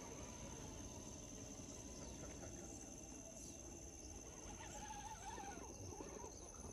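Faint, steady high-pitched chirring of insects, with a brief wavering bird-like call a little past the middle.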